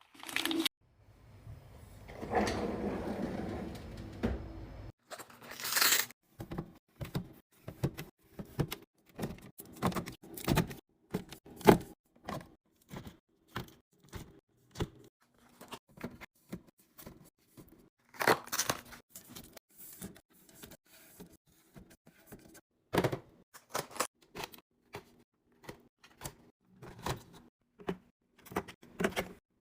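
Packaged snacks and drinks being handled and set into place one after another: many short clicks, taps and knocks, with a stretch of crinkly rustling about two to five seconds in.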